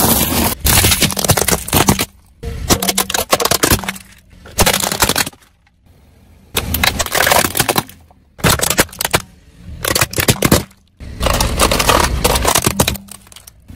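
A car tyre crushing brittle objects: crunching of crisp snacks and cracking and snapping of plastic toys, in several separate bursts of dense crackle with short pauses between them, some with a low rumble from the rolling tyre.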